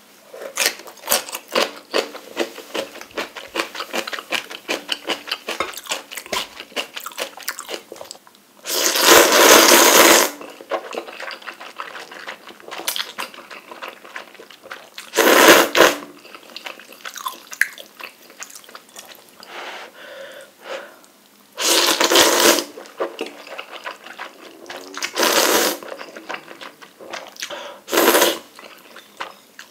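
Close-up eating sounds of a person eating soupy spicy instant noodles: steady wet chewing and small mouth clicks, broken by five loud slurps of noodles, each lasting a second or so.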